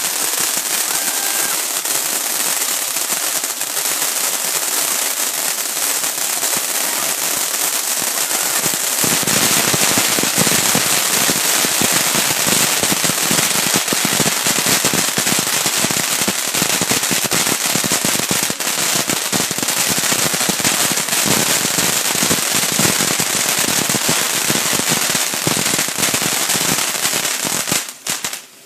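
Ground firework fountain burning: a steady hissing spray that about nine seconds in turns louder and denser, with thick crackling. It cuts off sharply near the end.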